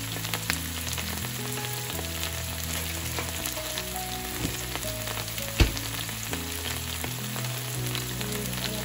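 Chopped Vidalia onion, garlic and ginger frying in olive oil in a skillet: a steady sizzle with scattered small pops, and one sharper pop a little past halfway.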